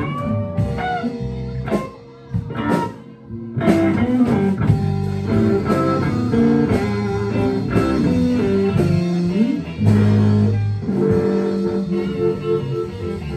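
Blues band playing an instrumental passage: guitar notes and runs over bass, with a brief drop in volume about two seconds in and a held chord near ten seconds.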